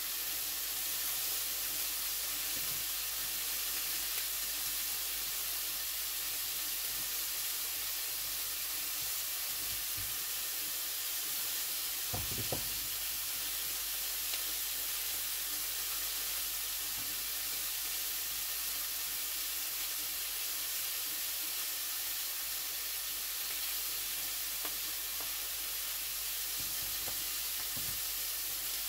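Steaks and sausages sizzling as they fry in a pan, a steady hiss with a single knock about twelve seconds in.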